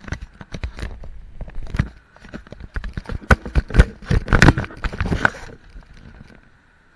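Handling noise from a worn action camera being taken off or moved about: a dense clatter of knocks, taps and rubbing right on the microphone, loudest in the middle, dying away about five and a half seconds in.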